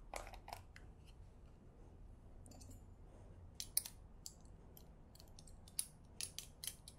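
Light, sharp clicks and clinks of a measuring spoon scraping and tapping against a spice jar as ground coriander seed is scooped out: a few just after the start, then a quick run of them from about halfway through.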